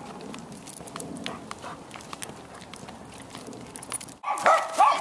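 Footsteps and a dog's claws on pavement, then a dog barking twice, loudly, about four seconds in.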